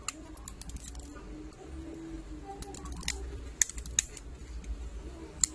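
Plastic back cover of a Samsung Galaxy A31 being pried off by fingernail, its retaining clips snapping loose in a handful of sharp clicks, most of them around the middle.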